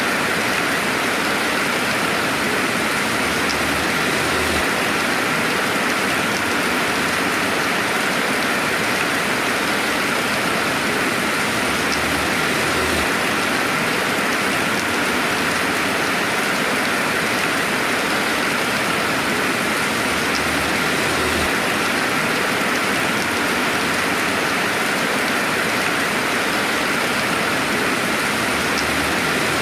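Steady rainfall, an even hiss of rain falling on a surface with no thunder.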